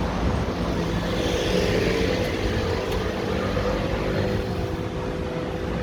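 Handheld camera gimbal's motors whining, a steady hum on several fixed pitches that does not change.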